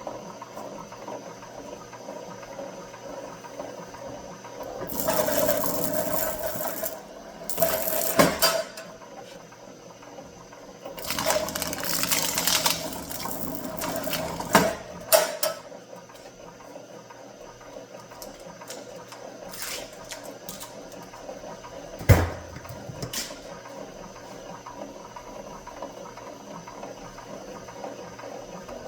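Copper wire being stripped by hand: several bursts of scraping a second or two long, separated by quieter stretches, with a few clicks and one sharp knock about 22 seconds in.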